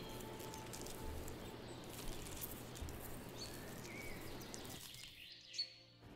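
Faint outdoor nature ambience: a steady hiss of background noise with scattered small ticks and rustles and a few brief high bird chirps. It fades away near the end.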